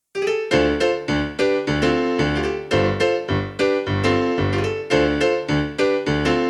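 Yamaha PSR-373 keyboard playing a rock-pop piano-style voice: repeated chords over bass notes at a steady pulse of about two a second, starting suddenly out of silence.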